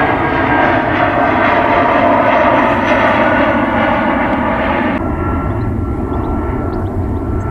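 Airliner's engines at departure thrust, a loud steady rushing noise with whining tones that slowly fall in pitch. About five seconds in, the high part of the sound cuts away abruptly, leaving a lower rumble.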